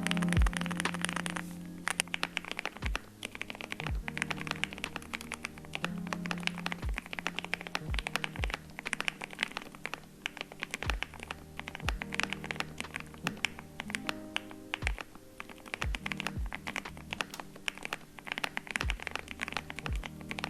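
Continuous fast typing on a mechanical keyboard fitted with Gateron Blue Bubble Gum linear switches, a dense run of key clacks, over background music with a beat.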